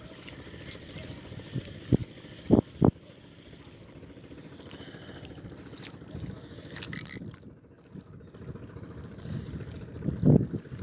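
Dull low thumps of wind and handling knocking on a handheld phone microphone, over a steady background rumble, with one brief hiss about seven seconds in.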